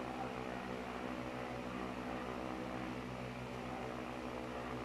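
Steady low machine hum with an even hiss, a running appliance in the room; nothing else stands out.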